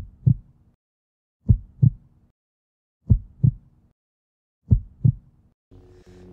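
Heartbeat sound effect: four slow double thumps, lub-dub, spaced about a second and a half apart. Near the end a low steady hum with a few held tones comes in.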